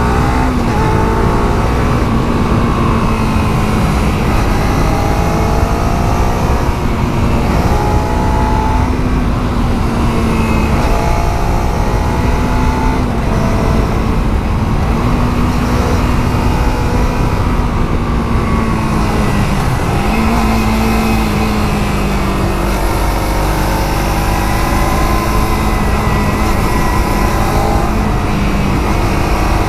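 Kawasaki Z300 parallel-twin engine with its stock exhaust, ridden at fairly steady revs, with a few brief dips as the throttle is eased and rolled back on.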